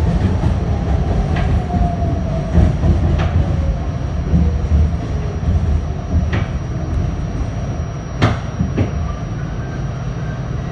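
R68 subway train, heard from inside the car, rolling and slowing into a station: a heavy running rumble, a whine falling in pitch over the first few seconds, and several sharp clicks from the wheels.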